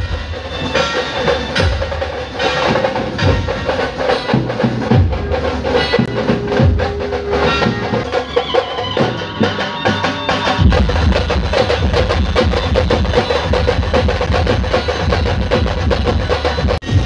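A procession band playing loudly, with dense drum and percussion strokes under a sustained melody line. The bass drum comes in heavier about ten seconds in.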